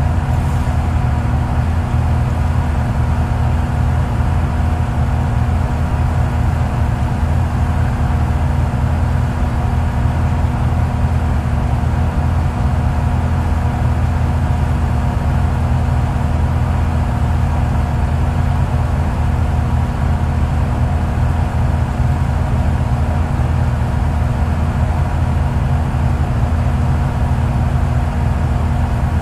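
Off-road competition vehicle's engine idling steadily, heard from inside the cab, with an even low rumble and no revving.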